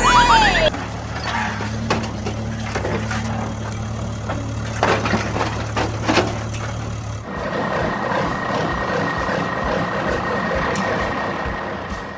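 Truck engine sound effect running steadily with scattered clicks. About seven seconds in it changes to a different steady vehicle sound with a held higher tone.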